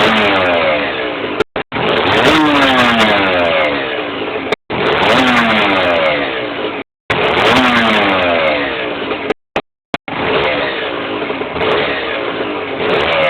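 Aprilia RS 125's single-cylinder two-stroke engine revved in repeated blips, each falling back in pitch every two to three seconds; the sound cuts out briefly about four times. The owner records it because of a suspect engine noise.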